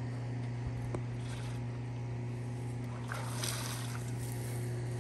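A steady low hum, over which the perforated aluminium basket of crawfish is lifted out of the boil pot, with a short rush of draining water about three seconds in.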